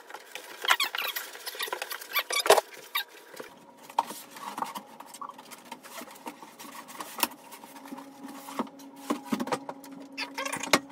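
Foam packing squeaking and rubbing against the metal printer frame, with cardboard scraping and irregular clicks and knocks as the 3D printer base is lifted out of its box and set down; one sharp knock about two and a half seconds in.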